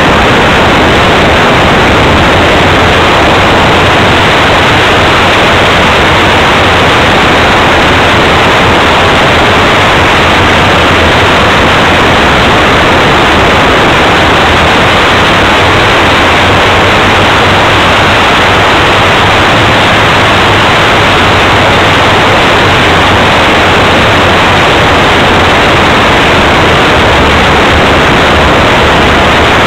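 Steady, loud rush of propeller and airflow noise from a radio-controlled Vans RV-4 model plane in flight, picked up by a small camera mounted on its wing, with a faint low drone underneath.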